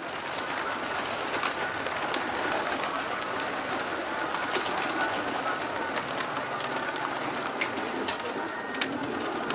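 A flock of domestic pigeons cooing continuously, with scattered sharp wing flaps and clicks as some of the birds flutter up off the loft roof.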